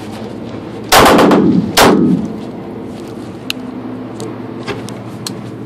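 Two pistol shots about a second apart, each followed by a long echoing tail off the walls of an indoor range. A few faint clicks follow.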